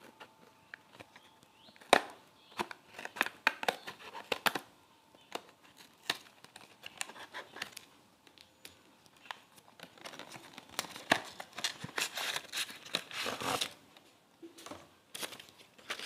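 Scissors snipping at the seal of a small cardboard product box, then packaging crinkling and tearing as the box is opened. The sound is a scattered run of sharp clicks and snips, with a denser crinkling stretch past the middle.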